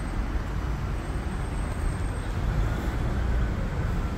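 Street traffic noise: cars running along a city street, a steady hum with a low rumble.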